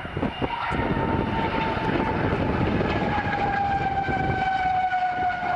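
North American Eagle jet car's General Electric J79 turbojet passing at speed: a loud, steady rushing noise with a high whine that slowly falls in pitch as it goes by.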